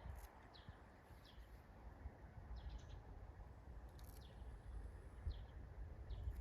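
Faint birdsong: a bird gives short falling chirps roughly once a second, over a low rumble.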